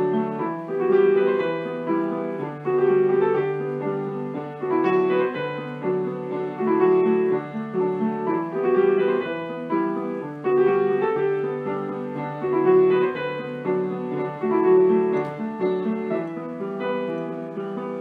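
Background piano music: a steady melody over held low notes, swelling in loudness about every two seconds.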